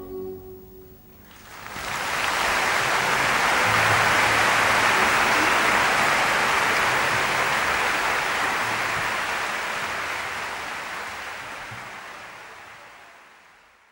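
A music note dies away at the start. About a second and a half in, a steady rushing noise swells in, with faint low notes beneath it, then fades out near the end.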